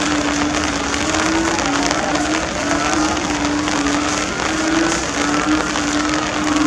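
Heavy torrential rain pouring down in a steady hiss, with a low wavering hum and faint whines that glide up and down.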